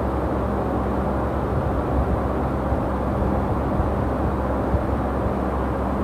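Steady mechanical hum with an even rushing noise underneath, unchanging throughout.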